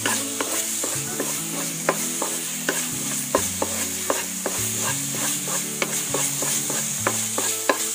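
A wooden spatula stirring and scraping a thick milk-and-milk-powder mixture in a nonstick pan, with irregular clicks as it knocks the pan and a sizzling hiss from the hot pan. The mixture has cooked down to a dough for milk-cake sweet and is nearly ready.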